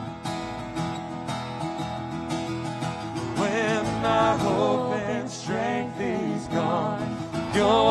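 Live acoustic guitar strumming with an acoustic bass guitar underneath; a man's singing voice comes in about three and a half seconds in.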